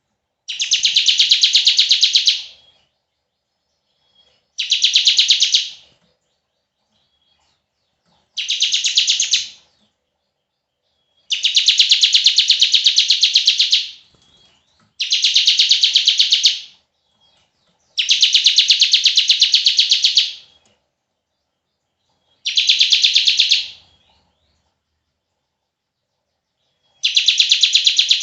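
Bar-winged prinia (ciblek) giving its long 'bren' call: a series of high, very rapid rattling trills, each lasting one to two and a half seconds, with short silent pauses between them.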